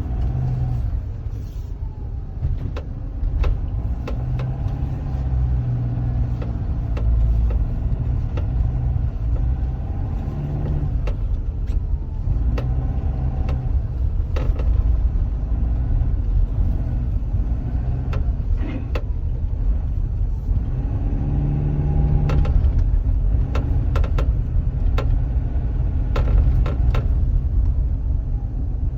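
Car running with a continuous low rumble and irregular sharp knocks coming every second or so, an unexplained knock whose cause the owner is asking about.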